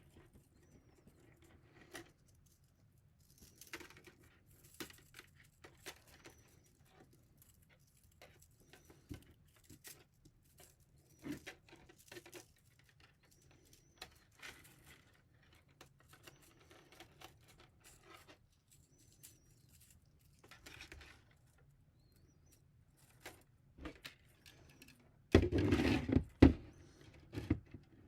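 Scattered small clicks, ticks and rustles of plastic 3D printer filament and a plastic spool being handled while the filament is wound on by hand, with a louder clatter of knocks and rattles about 25 seconds in.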